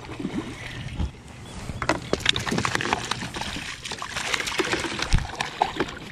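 Water splashing and sloshing against a kayak, with scattered sharp knocks and clicks that get busier about two seconds in: a hooked bass thrashing as it is fought to the kayak and landed.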